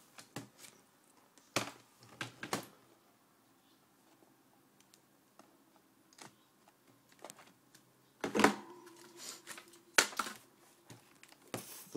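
Clicks and knocks from handling an iBook G4 laptop's plastic case while its battery is taken out. A few light clicks come in the first few seconds, then a quiet stretch, then louder knocks about eight and ten seconds in.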